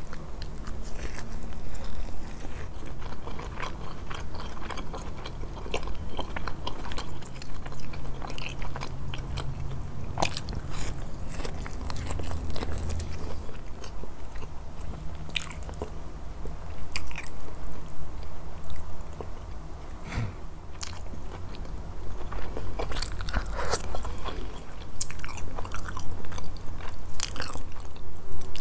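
Close-miked eating: biting and chewing grilled fish with repeated small crunches and mouth clicks.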